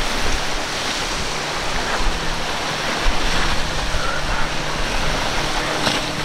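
Surf and churning water rushing steadily, with wind rumbling on the microphone and a faint low hum of boat engines underneath.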